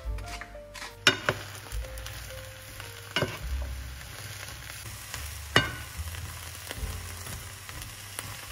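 Diced eggplant sizzling in oil in a non-stick frying pan as it is stirred with a wooden spatula. The spatula knocks sharply against the pan three times: about a second in, about three seconds in, and about five and a half seconds in.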